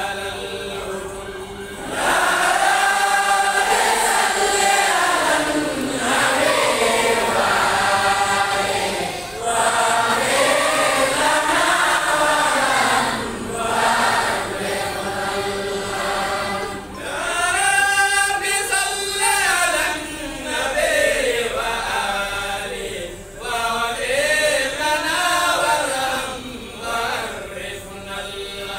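Many voices chanting together in unison, a religious chant in phrases of a few seconds each with a rising and falling melody and short breaks between phrases.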